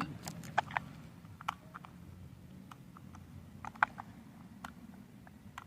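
Light, scattered clicks from a combination lock's number wheels being turned one position at a time as each setting is tried, about a dozen in all.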